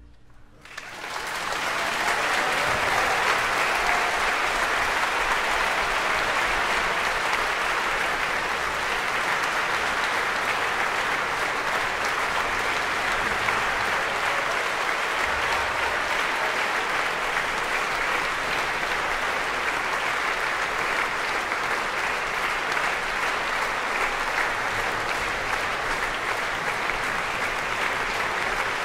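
Concert audience applauding, breaking out about a second in and then holding steady.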